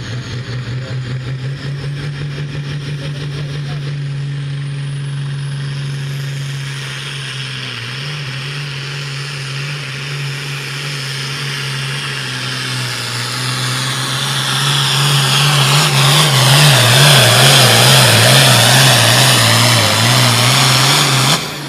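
Hot Farm class pulling tractor's engine at full throttle dragging a weight-transfer sled. It holds a steady pitch, then grows louder about two-thirds of the way through, its pitch wavering up and down under load, and cuts off suddenly near the end.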